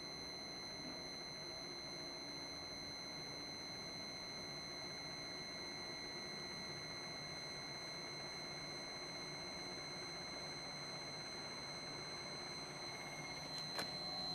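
Kokusan CS77 basket centrifuge running steadily under its inverter-driven electric motor, a high steady whine with overtones over an even running noise. A single sharp click near the end.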